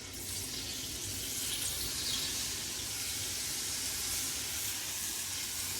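Steady sizzling hiss from a hot pan on high heat.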